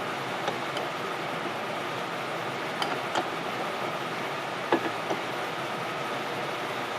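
Scattered light clicks and clinks of hand tools and parts as a diesel fuel injector is taken apart, the loudest a little under five seconds in, over a steady hiss.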